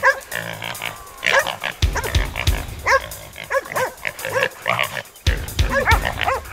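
Young feral boar squealing and dogs barking during a fight, a string of short repeated cries as the dogs hold the boar.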